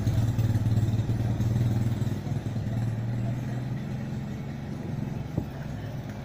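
Low, steady engine drone that slowly fades, with a faint click about five seconds in.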